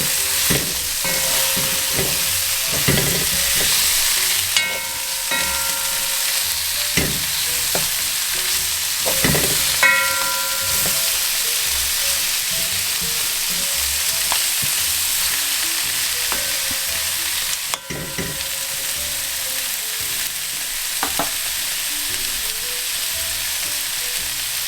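Duck and onions frying and sizzling in a pan while being stirred. A steady sizzle runs under occasional knocks and scrapes of the spoon against the pan, with a couple of brief metallic rings.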